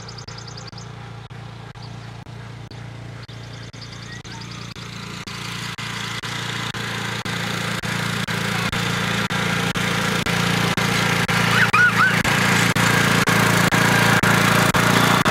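Riding lawn mower engine running steadily, growing louder over the first half and then holding.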